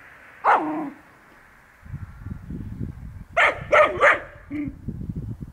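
Rough collie puppy barking at its toy: one falling yelp about half a second in, then three quick barks close together a little after three seconds, over a low rustling underneath.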